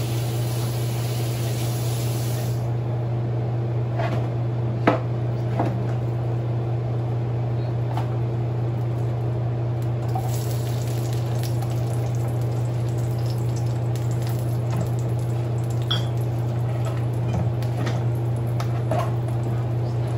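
Hot oil in a wok crackling with scattered pops and spits over a steady low hum, the spitting picking up a little after garlic cloves are dropped into the oil about halfway through.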